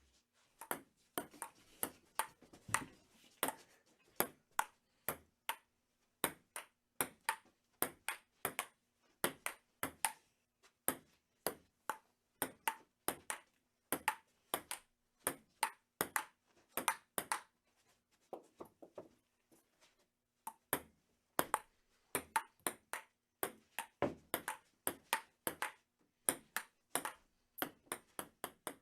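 Table tennis rally: the ball clicks back and forth off the bats and table at about two hits a second. There is a short lull of fainter taps about two-thirds of the way through before the rally resumes.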